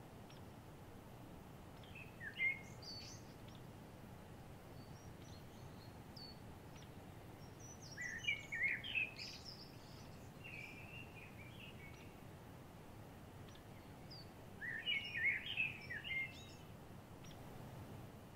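Songbirds singing in three short bursts of quick chirps, several seconds apart, over steady low background noise.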